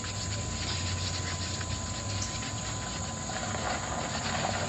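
Small spoons stirring and scraping glue and paint in a bowl, faint under a steady low hum and hiss.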